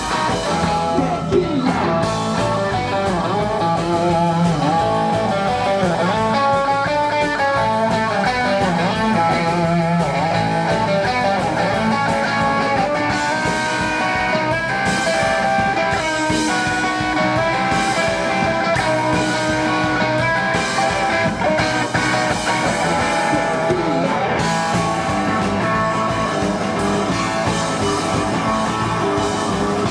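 Rock band playing live, with electric guitar and a Nord Electro 3 electric keyboard.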